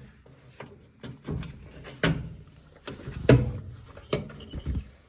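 A handful of irregular knocks and clunks, the loudest about two seconds in and again a little after three seconds.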